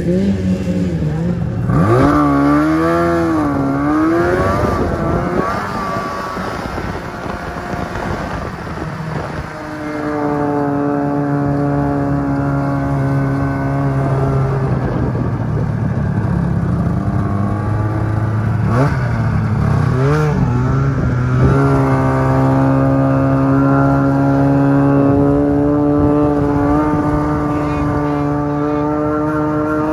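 Snowmobile engine running under way. Its pitch swings up and down a few seconds in, then holds steady, with a brief drop and rise again about two-thirds of the way through.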